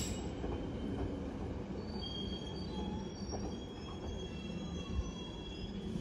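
Train wheels squealing on the rails, with thin, steady high-pitched squeal tones coming in about two seconds in over a continuous low rumble of a moving train.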